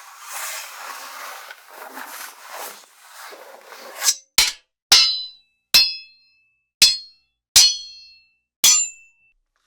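Sword sound effects: about four seconds of swishing, scraping blade noise, then about seven sharp metallic sword clangs at uneven intervals, each with a short high ring.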